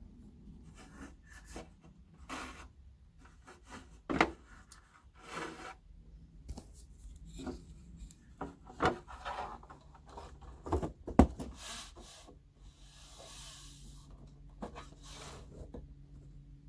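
Parts of a tower speaker being handled and fitted back together: scattered clicks and knocks with rubbing and scraping, the sharpest knocks about four and eleven seconds in, and a brief scrape near the end.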